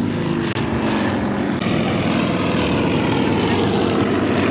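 Propeller airplane engine running loud and steady.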